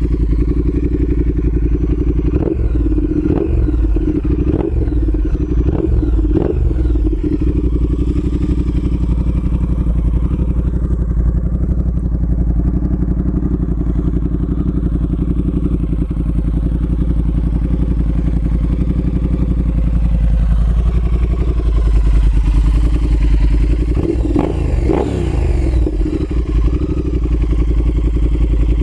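Triumph Speed Twin parallel-twin engine running through Cone Engineering Shorty Cone slip-on mufflers and an X-pipe. It idles steadily and is revved in quick throttle blips, a burst of four or five between about 2 and 7 seconds in and a couple more near the end.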